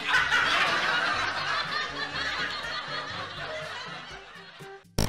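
Laughter that starts suddenly, fades gradually over several seconds and cuts off near the end.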